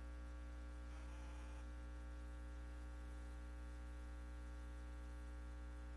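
Steady low electrical hum with faint hiss, and a faint brief sound about a second in.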